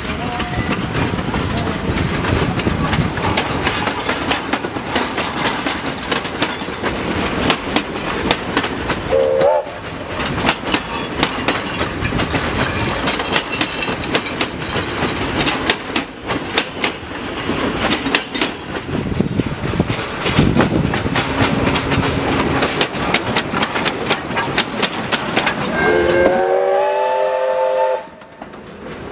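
SAR T Class steam locomotive and its wooden carriages rolling past over a timber trestle bridge, the wheels making a dense, fast clatter of clicks over the rail joints. Near the end the locomotive's whistle sounds for about two seconds as one steady chord.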